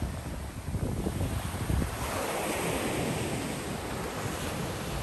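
Rough sea surf breaking over rocks and washing up the sand, with wind rumbling on the microphone. A wave's wash swells up about two seconds in and stays loud.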